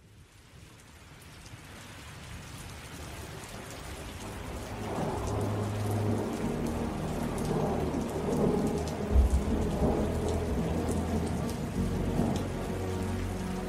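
Rain with rumbling thunder, fading in from silence and growing steadily louder, with deep rumbles from about five seconds in.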